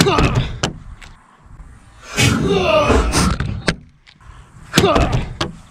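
A fixed-blade knife striking and chopping at a plastic water bottle: a sharp hit at the start, a longer crackling, crumpling stretch of plastic about two seconds in, and another hit near the end, as the blade fails to cut cleanly through.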